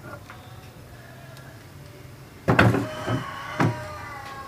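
A few loud knocks and bumps about two and a half seconds in, over a low steady background. A rooster crows in the background in the last two seconds.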